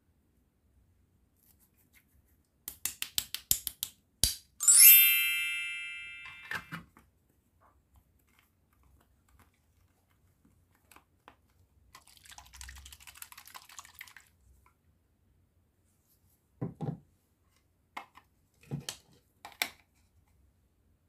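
Plastic toy food and play-kitchen pieces handled by hand: a quick run of light clicks, then a bright chime about five seconds in that rings and fades over a second or two. Later, soft squishing of play dough being pressed, and a few light knocks of plastic pieces near the end.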